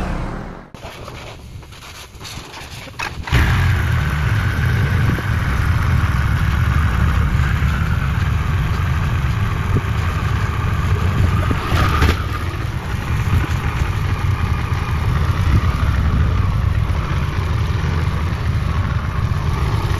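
Harley-Davidson Pan America Special's liquid-cooled 1252 cc 60-degree V-twin starting suddenly about three seconds in, then idling steadily with a low rumble. A single sharp click comes about halfway through.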